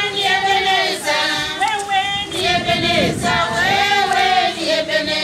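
A group of voices, mostly women's, singing together in long held notes that slide between pitches.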